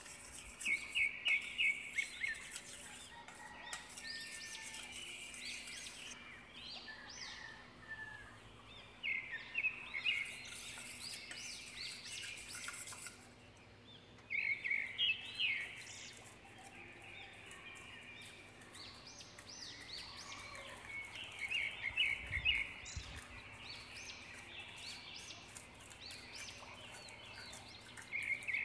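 A bird chirping in short bursts of rapid high notes, each lasting about a second and repeating every five to seven seconds, over a faint steady hum. A single low thump comes about two-thirds of the way through.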